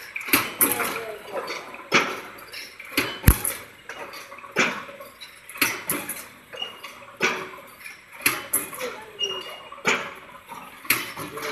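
Automatic wire mesh welding machine running through its cycle, with a sharp clank roughly once a second as the welding press comes down and the mesh is drawn forward.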